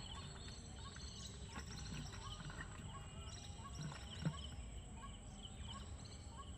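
Faint outdoor riverside ambience with scattered short, high chirps and one soft knock a little past the middle.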